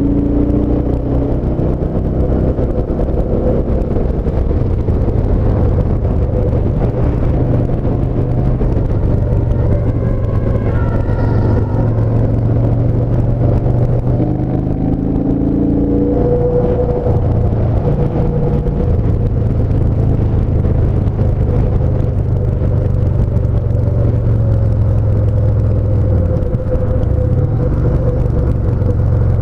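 Yamaha SCR950's air-cooled 942 cc V-twin running at a steady cruise, its drone holding an even pitch throughout.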